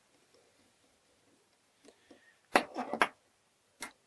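Small metal parts and a screwdriver handled on a steel workbench and GU lock case: a quick cluster of sharp clicks and knocks about two and a half seconds in, then one more click near the end.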